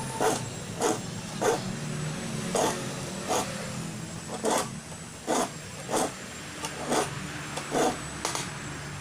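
Hand saw teeth being sharpened with a metal file: short, rasping file strokes, roughly one every second or a little faster, over a low steady hum.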